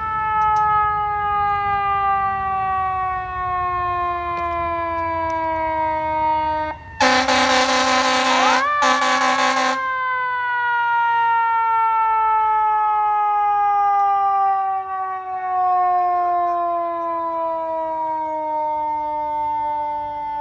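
Fire engine's siren winding down in a long, slow fall of pitch. About seven seconds in it is cut across by two loud air-horn blasts while the siren is briefly wound back up, and then it slides slowly down again.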